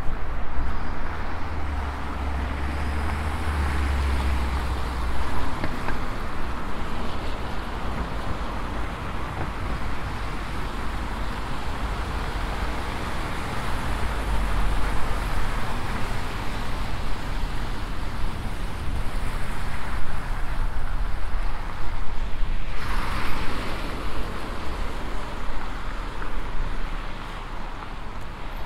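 Street traffic running past a moving bicycle, a steady hiss of vehicles and riding noise. A deep low rumble swells twice, and there is a short brighter rush about 23 seconds in.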